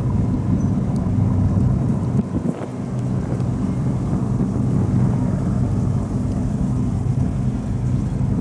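Diesel engines of high-speed passenger ferries approaching across open water, a steady low drone under a rough rumble of wind on the microphone.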